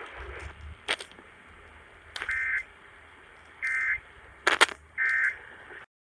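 Radio hiss with crackling clicks, then three short squawking data bursts a bit over a second apart. These are the EAS SAME end-of-message tones, which mark the close of the alert. The audio drops out briefly at the very end.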